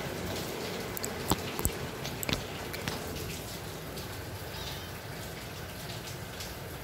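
Kitten mewing faintly, with a few sharp clicks and knocks about one to three seconds in as the phone is handled, over a steady background hiss.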